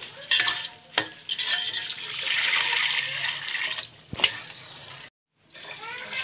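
Water poured from a vessel into a steel cooking pot of fried rice, a steady splashing pour lasting a couple of seconds. A few sharp metal clinks of the ladle and vessel against the pot come before and after the pour.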